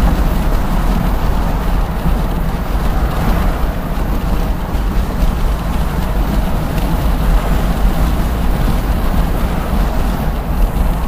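Steady road and wind noise from a Tango electric car driving at freeway speed, mostly a low rumble with no engine note.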